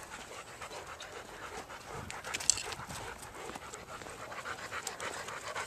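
A dog panting close by, a steady run of quick breaths, with one short sharp click about halfway through.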